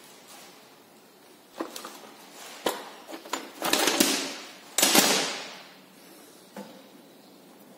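Metal tools and suspension parts knocking and clanking during hand work on a car's front suspension: a few scattered knocks, then two louder clattering bursts about four and five seconds in that ring out briefly.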